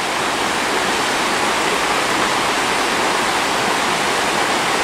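Shallow, rocky river rushing over riffles and small rapids: a steady, loud rush of water.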